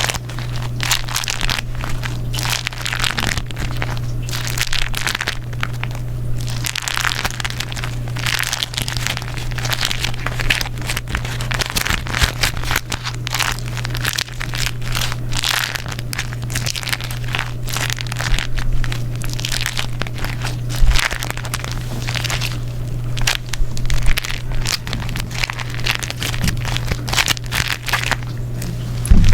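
Beeswax food wrap being crumpled and folded by hand, giving continuous sticky crinkling and crackling with many sharp little snaps, over a steady low hum.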